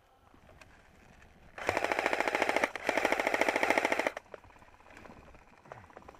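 Airsoft electric gun firing two fully automatic bursts, each a little over a second long, with a short break between them. The bursts start about a second and a half in.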